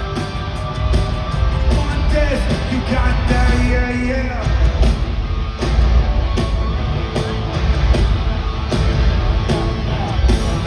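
Live rock band playing loudly in an arena, with heavy bass and drums and a sung vocal line over it, recorded through a phone's microphone.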